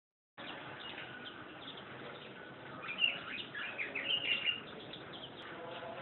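Small songbirds chirping: scattered quick high chirps throughout, with a busy run of them from about three seconds in to about four and a half seconds.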